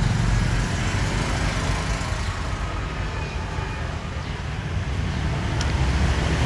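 Steady rumbling noise of road traffic, with one short click about five and a half seconds in.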